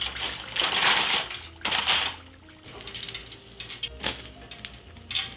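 Hot frying oil sizzling and dripping as fried samosas are lifted out of the pan with a wire skimmer, loudest in two bursts about one and two seconds in. Soft background music runs underneath.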